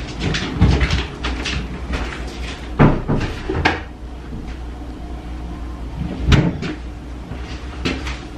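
Laundry being loaded into a washing machine from a plastic basket: the machine door and the basket clunk and knock several times, the loudest knocks about three and six seconds in.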